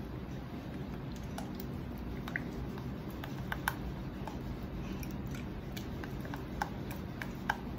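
Wooden spoon stirring thick passion fruit cream in a stainless steel saucepan: soft squishing with scattered light ticks of the spoon against the pan.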